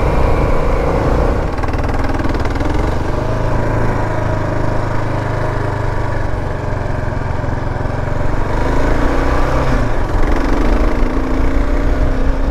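Kawasaki KLR 650's single-cylinder engine running steadily as the bike cruises along a dirt road. The engine pitch shifts about nine seconds in.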